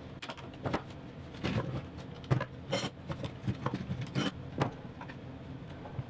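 Scattered knocks, clicks and clatter as a plywood drawer box and bar clamps are handled on a wooden workbench, over a low steady hum.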